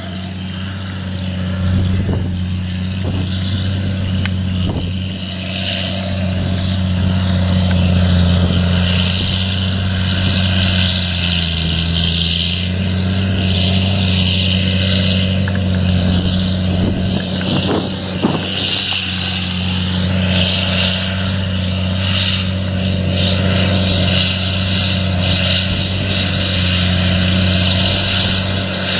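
A motor running steadily with a constant low drone, dipping briefly in pitch about twelve seconds in, under a rushing hiss that rises and falls.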